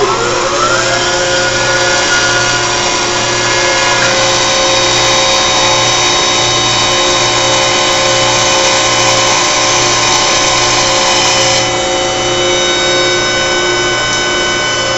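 Carrier 30HX chiller's screw compressor running: a loud, steady drone with several whining tones over it. One whine rises in pitch over about the first second and then holds level.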